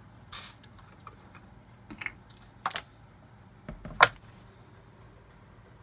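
Handling noises on a tabletop: a short swish, then a few sharp clicks and knocks as objects are picked up and set down, the loudest knock about four seconds in.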